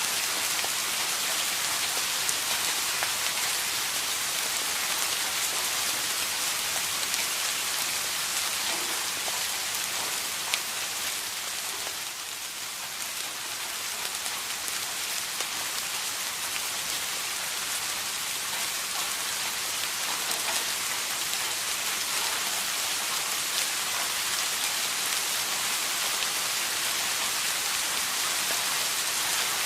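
Steady rain falling, a dense even hiss with scattered individual drop ticks, easing slightly for a couple of seconds near the middle.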